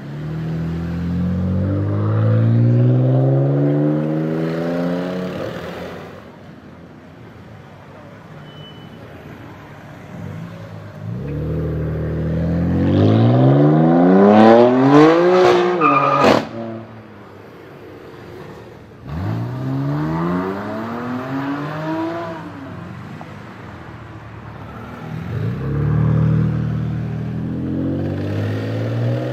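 BMW M4 F82's twin-turbo inline-six with a loud Fi aftermarket exhaust, revving up in four separate pulls with rising pitch. The pull in the middle climbs highest, with a few sharp cracks at the top, then cuts off suddenly.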